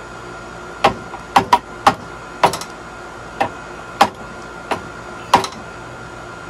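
Sharp metal-on-metal knocks, about nine irregular blows with a short ring, as a tool strikes the steering parts under the car.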